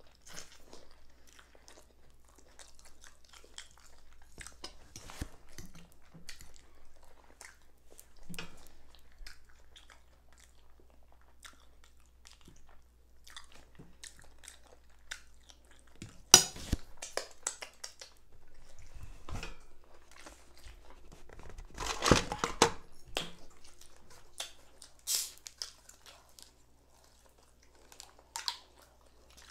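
Close-miked chewing and mouth sounds of a person eating fried liver and mashed potatoes, with short clicks and scrapes of a fork on the plate. Near the end a plastic bottle cap is twisted open.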